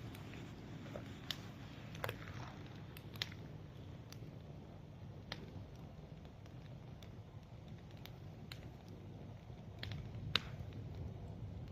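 Large bonfire burning: a steady low rush under scattered, irregular sharp crackles and pops, with one louder pop near the end.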